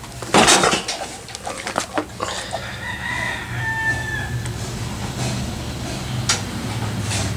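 A loud, short burst of noise about half a second in, then a rooster crowing in the background, one drawn-out call a few seconds in, over a steady low hum.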